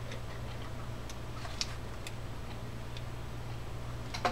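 Small metallic clicks and ticks from a C-clip and tool being worked onto a vintage Gladding South Bend spinning reel, with a sharper click near the end. A steady low hum runs underneath.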